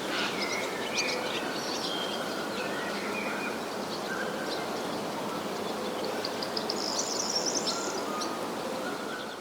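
Outdoor nature ambience: a steady hiss with scattered bird chirps, and a quick run of high chirps about seven seconds in.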